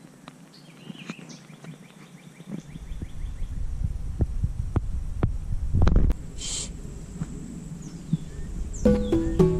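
Wild birds calling, one with a quick repeated trill. About three seconds in, a low rumble and scattered knocks on the camera microphone take over, with one heavier thump about six seconds in. Near the end a plucked-string tune starts.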